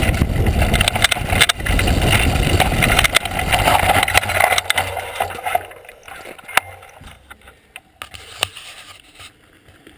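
Mountain bike rolling fast down a rocky dirt trail, heard from a camera on the bike: a loud rumble of wind on the microphone and tyres on gravel, with the bike rattling and clicking over stones. About five and a half seconds in it fades sharply as the bike slows, leaving scattered clicks and crunches of gravel.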